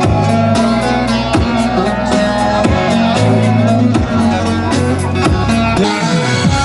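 Amplified folk dance music: a plucked bağlama (long-necked saz) playing over a steady beat.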